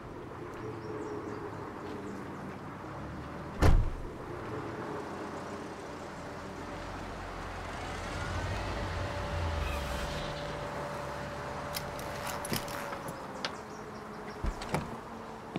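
A car's engine running steadily, with a loud thump about four seconds in, like a car door shutting, and a few light clicks later.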